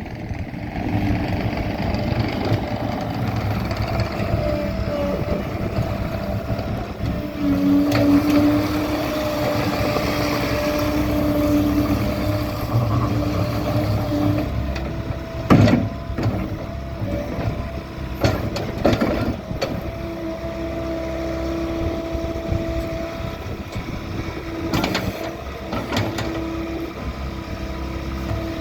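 Bobcat T64 skid steer's diesel engine running steadily with a whine over it, and several sharp clanks and knocks partway through and near the end, the loudest about halfway.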